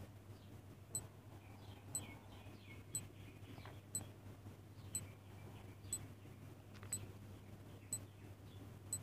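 Countdown timer sound effect ticking like a clock, one short sharp tick each second, over a faint steady low hum.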